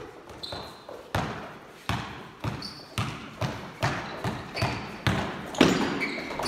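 Basketball dribbled on a hard indoor court: a steady run of bounces about every half second or so, echoing in a large hall, with short high sneaker squeaks between them. A louder thump comes near the end.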